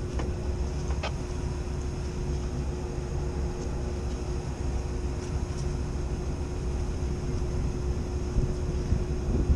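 Steady low rumble with a constant hum from rooftop machinery running. A couple of faint metallic clicks come in the first second as a tool works on the fan hub.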